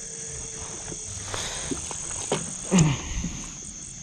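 Steady high-pitched chirring of crickets and other night insects, with faint rustles and clicks as a freshly caught small snakehead is handled on the line. About three seconds in there is a short, louder low sound that falls in pitch.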